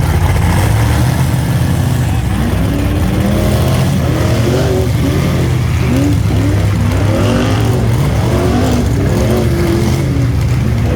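Rock bouncer race buggy's engine running loudly, with a steady low rumble and rising and falling pitch as it revs, and voices mixed in.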